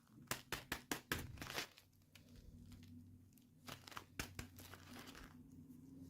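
Toy packaging crinkling in hands as it is opened: a quick run of sharp crackles in the first second and a half, then a few more about four seconds in.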